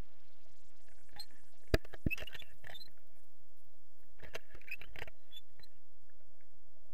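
Underwater river sound picked up by a submerged camera: scattered sharp clicks and ticks, one just before two seconds in, a cluster around two to three seconds and another around four to five seconds, over a steady faint hum.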